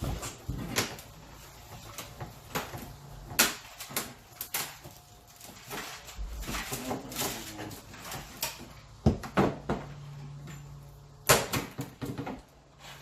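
Irregular knocks, clicks and clatter of hands and tools working on car parts, with a few louder knocks.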